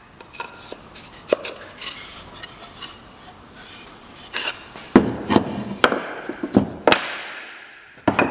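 Irregular wooden knocks and clunks from white oak workpieces being handled and tapped at the bench, about eight hits, the loudest coming in the second half.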